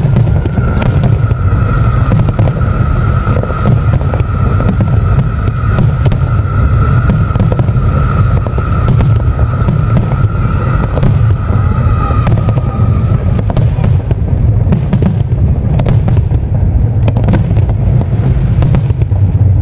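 Large aerial fireworks display: continuous deep booming of shell bursts, thick with sharp bangs and crackle overlapping one another. A steady high tone runs under it for most of the first two-thirds and then stops.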